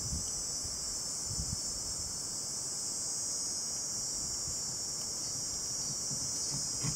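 Steady high-pitched insect chorus, like crickets, with a few faint soft knocks from hands working a rubber coolant hose and clamp.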